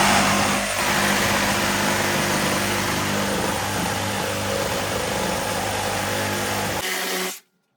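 Oscillating multi-tool running steadily while cutting the vent hole through the wall, a loud buzzing whine that stops abruptly about seven seconds in.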